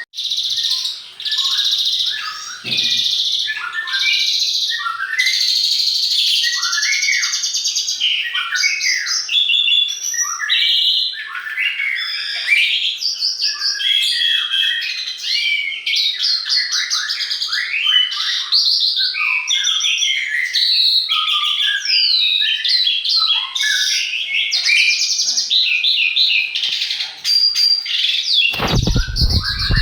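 Songbirds singing without pause: quick, varied chirps and whistles, many overlapping. A brief low rumble or thump comes in near the end.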